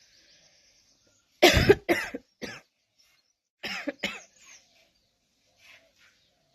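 A person coughing: a fit of three coughs about a second and a half in, the first the loudest, then a second fit of two coughs a couple of seconds later that trails off into a few fainter ones.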